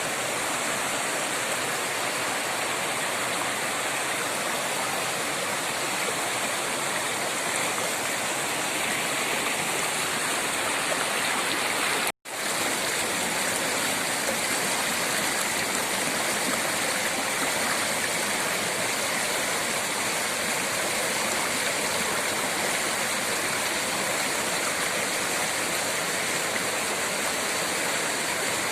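Waterfall rushing, a steady dense roar of falling water. It cuts out completely for a fraction of a second about twelve seconds in, then resumes.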